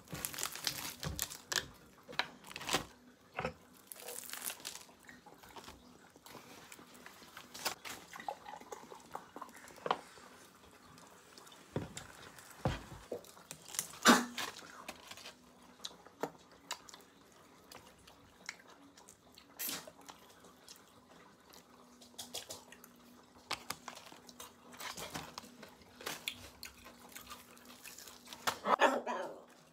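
Crispy Korean fried chicken being torn apart by hand and eaten: scattered crackles and crunches of the fried crust, with rustling of the paper wrapping. Near the start, Sprite is poured into a glass and fizzes.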